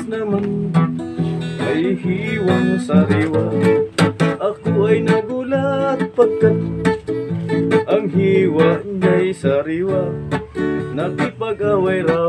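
A man singing an old-time Filipino song while strumming an acoustic guitar, his voice over a steady strummed chord accompaniment.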